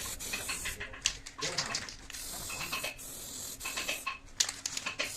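Repeated bursts of hissing spray, each about a second long, broken by quick clicks and light tapping.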